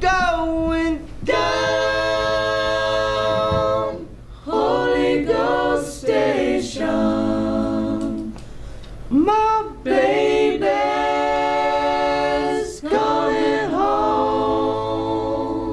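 Unaccompanied vocal music: voices singing long held notes in phrases a few seconds long, with short breaks between them.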